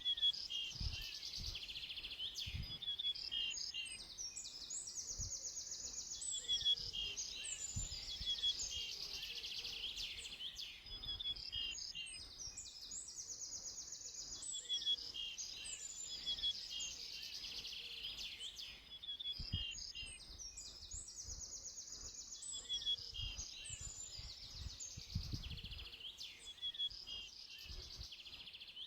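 Several birds singing at once in a dawn chorus: overlapping high trills and repeated chirping phrases, with occasional low rumbles underneath.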